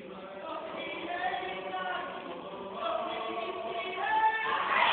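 A group of voices singing a slow chant in unison without instruments, in long held notes that change pitch every second or so, growing louder near the end.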